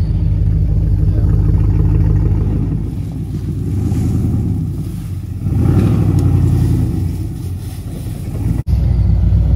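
Lifted Chevy Silverado pickup's engine running as it drives slowly off-road: a steady low rumble, first from inside the cab, then from outside as the truck comes toward and past, swelling as it nears. The sound breaks for an instant near the end.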